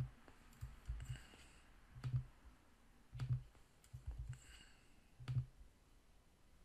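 Computer mouse and keyboard clicks, roughly one a second, each a short click with a low thump, as text boxes are selected and a formula is pasted in.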